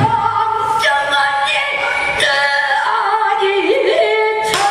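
Female solo pansori singing: a woman's voice holding long notes that bend and waver in pitch.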